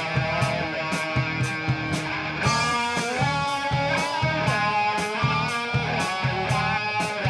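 Rock band playing live: electric guitar with bending notes over a steady, evenly spaced drum beat, with a crash about two and a half seconds in.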